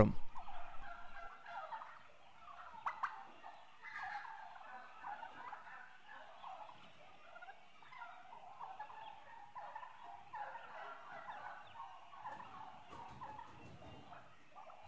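Wire whisk beating and scraping in a pot as broth is whisked into a roux for gravy, the liquid sloshing, with a couple of sharper clinks about 3 and 4 seconds in.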